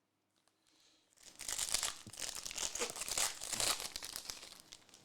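Wrapper of a Chronicles basketball card pack being torn open and crinkled. The crackling starts about a second in and runs on for roughly four seconds.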